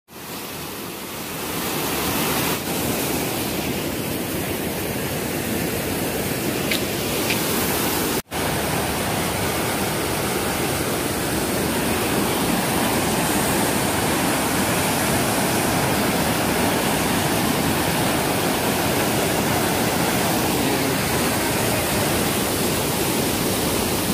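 Floodwater gushing through a concrete weir's spillway gap and churning below it: a steady, loud rush of water. The sound cuts out for an instant about eight seconds in.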